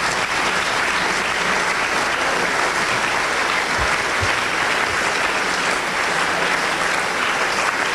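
A large audience applauding, steady clapping throughout.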